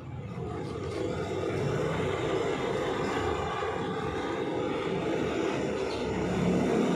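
A steady mechanical drone, like a motor or engine running, that builds up over the first second or two and then holds even.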